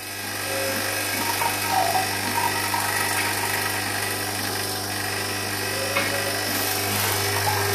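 A motor-driven machine running steadily with a low electric hum. It comes up to full level within the first second, then holds steady.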